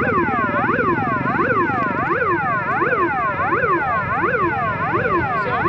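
Electronic warning siren at a railway level crossing, wailing in quick up-and-down sweeps about twice a second as a train approaches.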